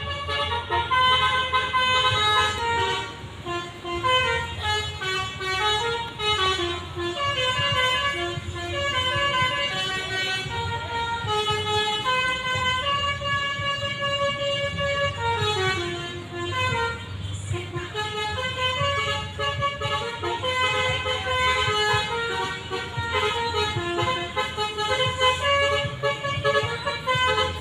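Telolet bus horn, a set of multi-tone air horns playing a fast melody of short notes that step up and down in runs, over a steady low hum.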